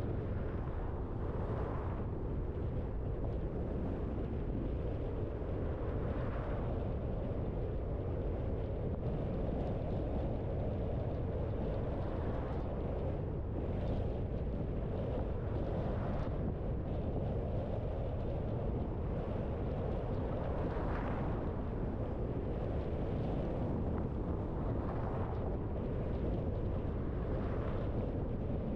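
Steady low rumble of a car driving, with road and engine noise, and brief swells of hiss every few seconds.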